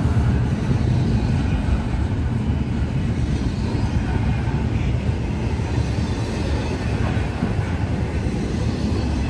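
Intermodal freight train rolling past, its cars making a steady low rumble on the rails.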